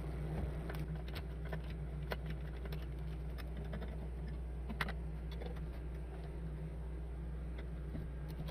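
Scattered light clicks and taps of a screwdriver on screws and metal parts while the front panel of a bench power supply is unscrewed, over a steady low hum. The sharpest click comes near the middle.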